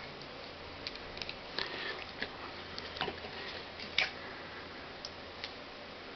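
Scattered small plastic clicks and rattles as parts of a 1/144 High Grade Gundam Virtue model kit are moved and snapped by hand, the loudest click about four seconds in, over a steady background hiss.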